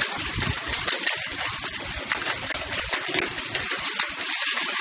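Heavy hail pouring down onto a flagstone patio and yard: a dense, continuous clatter of countless small ticks.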